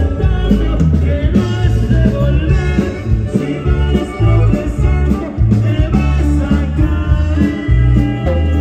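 Live band music played loud through a stacked PA system: heavy electric bass and drums under guitar, with a man singing into a microphone.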